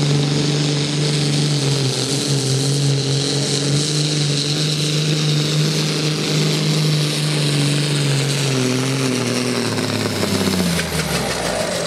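International 1455 XL farm-class pulling tractor's diesel engine running flat out under full load as it drags the weight-transfer sled. Its note holds steady for most of the pull, then sinks in pitch near the end as the engine is pulled down and the run comes to a stop.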